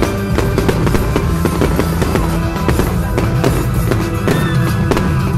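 Show music with a driving drum beat, with fireworks bursts popping and banging through it.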